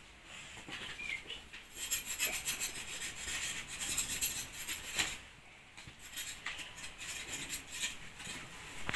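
Scratchy rasping and rubbing as the singed fur of a bamboo rat is scraped against a burning log at an open wood fire, in two spells of a few seconds each with a short lull between.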